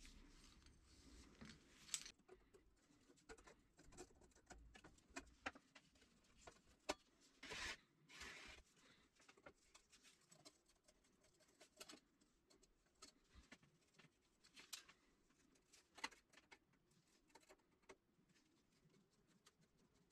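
Faint workbench handling sounds: scattered light clicks, taps and scrapes as the old battery charger's cables are handled and a screwdriver works at the screws of its rusty sheet-metal case, with a brief louder rustle about eight seconds in.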